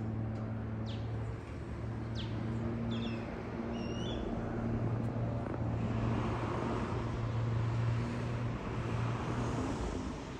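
Steady drone of a small propeller aerobatic plane's piston engine overhead, swelling with a rushing edge after about six seconds. A few short bird chirps come in the first four seconds.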